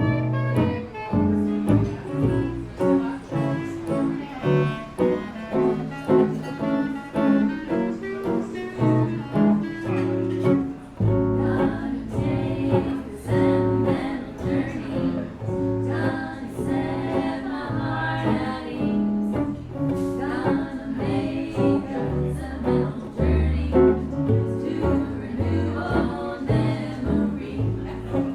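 A small live band playing a tune, with a bass walking under a lead melody line.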